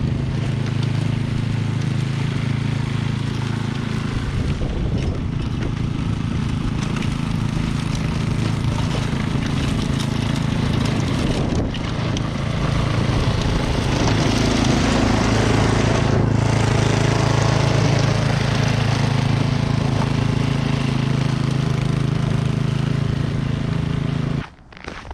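Snowblower engine running steadily at working speed while clearing heavy drifted snow, the thrown snow adding a rushing hiss; it cuts off abruptly near the end.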